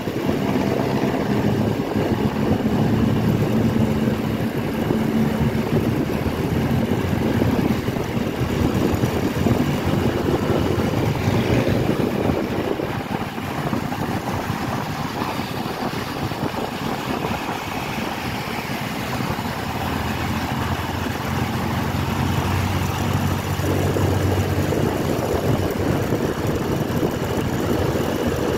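Motorcycle engine running while riding along a road, with a dense rushing noise over it; the engine eases off for several seconds in the middle and picks up again near the end.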